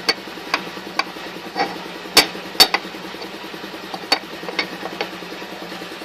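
Small metal parts of an air compressor pump being handled during reassembly: irregular light clicks and taps, about ten in six seconds, loudest a little past two seconds in, over a faint steady hum.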